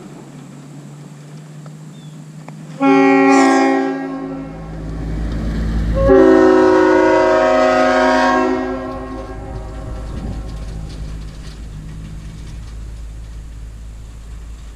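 Leslie S5T five-chime air horn, a replica with the 31 and 55 bells reversed, sounding a short blast and then a longer one of about two and a half seconds. A steady low rumble runs under and after the blasts.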